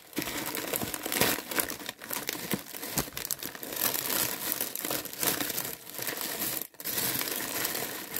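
Clear plastic cellophane bags and gift paper crinkling and rustling as packed items are pressed down into a cardboard box, with one brief pause about two-thirds in.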